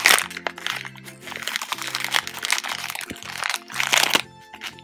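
Plastic-foil blind-bag packet crinkling loudly as it is twisted and torn open by hand, with the loudest rustles right at the start and about four seconds in. Background music with steady low notes plays underneath.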